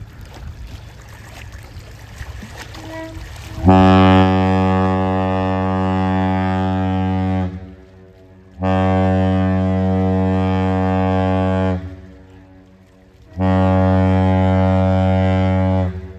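Great Lakes freighter's deep air horn sounding a salute: three long, steady blasts with short gaps between them, the first starting about four seconds in, after a low rumble.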